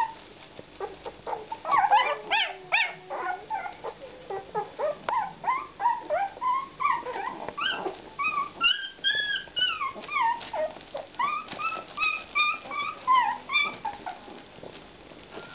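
Nine-day-old puppies squeaking and whimpering almost without a break, with many short high-pitched cries that rise and fall in pitch. One longer arching wail comes about halfway through.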